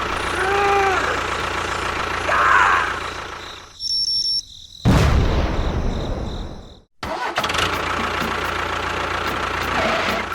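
Steady engine-like running noise, cut off abruptly a few times, with a short rising-and-falling pitched call about half a second in.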